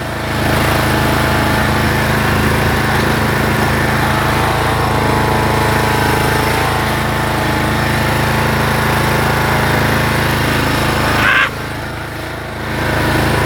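Zero-turn lawnmower engine running steadily as the mower is driven, dropping briefly in loudness near the end before coming back.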